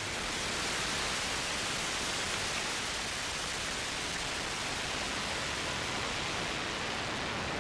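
Ariane 5 rocket lifting off, its solid boosters and main engine heard as a steady rushing roar that builds slightly in the first second.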